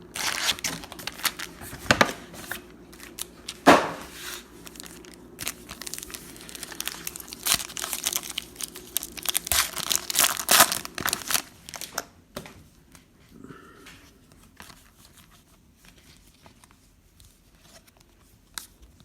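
Trading-card pack wrappers being torn open and crinkled, a dense crackling rustle for about twelve seconds, then only faint, scattered handling.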